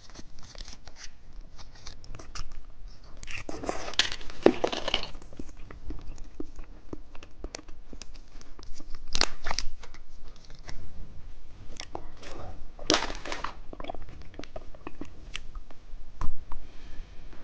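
Plastic wrapping of small jelly candies crinkling and tearing open, in a few rustling bursts with small clicks and taps between.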